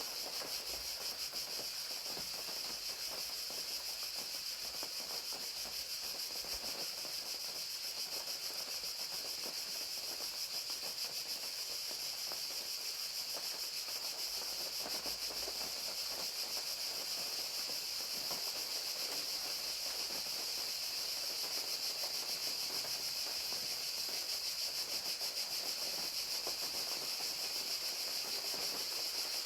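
Crickets chirping steadily in a continuous high trill, with rain falling as a steady hiss and patter behind them.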